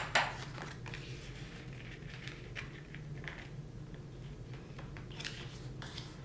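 Hands handling paper and packing materials: a sharp click near the start, then soft scattered rustles and light taps over a low steady hum.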